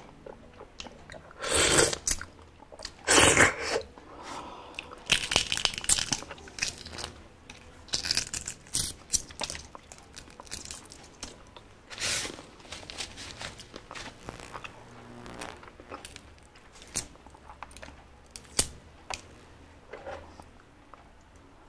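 Close-up eating sounds: chewing and wet mouth noises, with crackles and clicks as shell is peeled off a boiled duck egg. The loudest bursts come in the first few seconds, followed by softer, irregular clicks and chewing.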